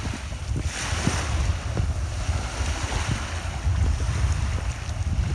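Small waves breaking and washing up a sandy beach, with wind buffeting the microphone in a low, uneven rumble.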